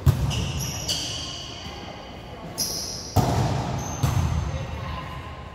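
Volleyball being played on an indoor court: the ball smacks off hands and arms about five times, loudest right at the start, with short high shoe squeaks on the court floor between hits.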